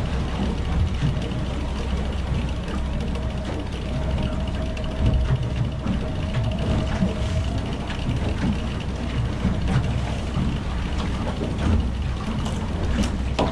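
Electric downrigger motor winding in its cable while a fishing reel is cranked, with mechanical whirring and clicking. Underneath is the steady rumble of the boat under way and the water.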